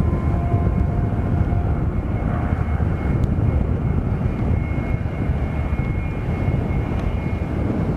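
Airplane engine running steadily: a continuous low rumble with a thin steady high tone over it.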